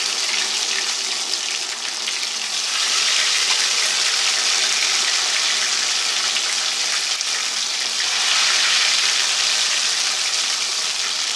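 Batter-dipped pinwheels of samosa dough deep-frying in hot oil in an aluminium karahi: a steady, dense sizzling.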